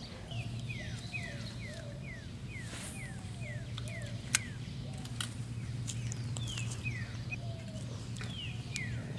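A songbird repeating clear, downslurred whistled notes, about two a second, over a steady low hum. A single sharp click comes about four seconds in.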